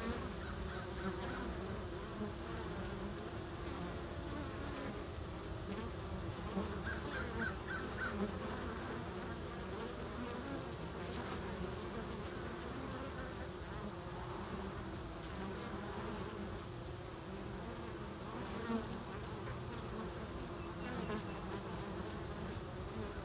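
Honeybees buzzing at a busy hive entrance: a steady hum of many foragers flying in and out, carrying in pollen.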